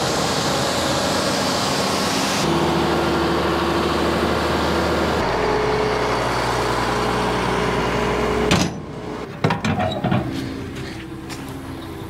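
Case IH 7140 Magnum tractor's diesel engine running steadily beside its grain cart, with abrupt changes in the sound twice. After about eight and a half seconds the engine sound drops away, leaving a quieter background with a few knocks.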